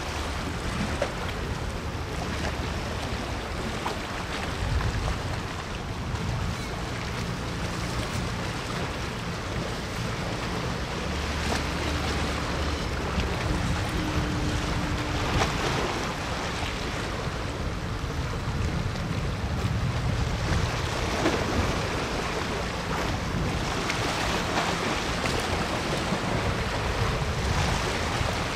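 Waterfront ambience: a steady wash of wind on the microphone and water against the shore, over a low steady rumble.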